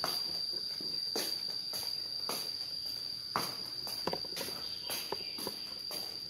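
Irregular soft knocks and rustles of footsteps and a handheld phone being moved about, over a steady high-pitched whine.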